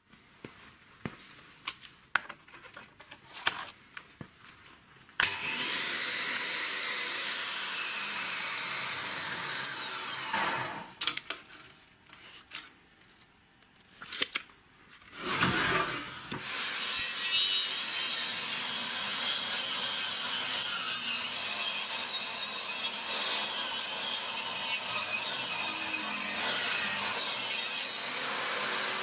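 A few clicks and knocks, then a homemade table saw, its blade driven by an angle grinder, running and sawing through wood in two long stretches, with a short break near the middle.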